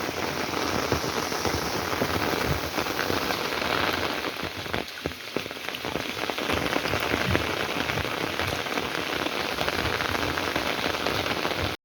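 Heavy rain falling steadily: a dense, even hiss thick with the ticks of individual drops hitting.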